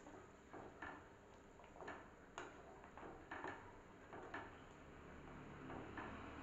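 Wooden spatula stirring thick vegetable soup in a red nonstick pan, with faint, irregular taps and scrapes against the pan. The soup is being thickened with cornflour.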